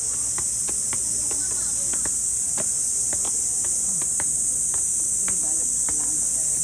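A chorus of cicadas singing in a steady, even, high hiss, with scattered light taps over it.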